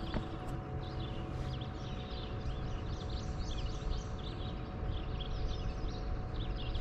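Songbirds calling and singing, a dense run of short, quick chirps and trills that goes on throughout, over a low steady rumble and a faint steady hum.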